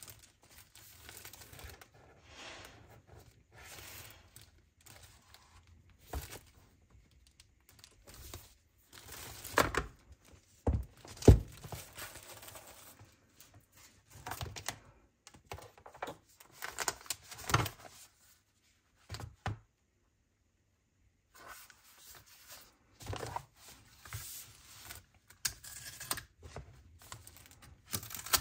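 Packaging being handled while unboxing: irregular tearing, rustling and crinkling of wrapping, with a few sharp knocks as items are set down, about ten seconds in.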